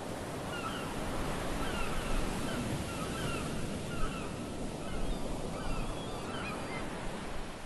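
Steady rush of surf and wind on a beach, with gulls giving a run of short calls, about one or two a second, that die away near the end.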